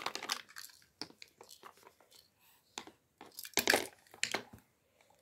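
Toys being handled: plastic and card pieces rubbed and knocked together in a run of short, irregular rustles and clicks, the loudest crackle about three and a half seconds in.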